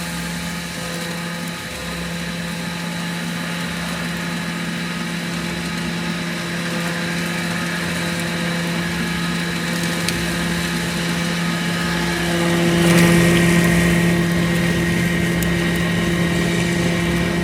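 Electric-motor-driven limestone grinder running steadily with an even hum, growing louder about thirteen seconds in.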